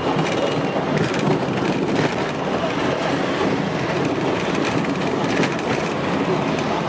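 Road noise inside a moving taxi's cabin: a steady rumble of tyres and engine with small knocks and rattles from a rough road surface.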